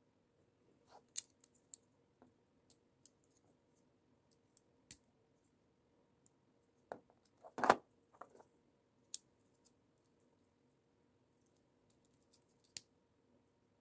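Small plastic LEGO pieces clicking and tapping as they are handled and pressed onto the studs of a model, in scattered single clicks, with a louder short clatter a little past halfway.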